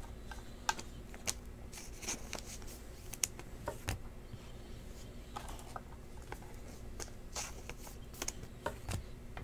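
Stiff Panini Prizm trading cards being handled and sorted: scattered light clicks and rustles as the cards slide against one another and are set down, over a faint steady hum.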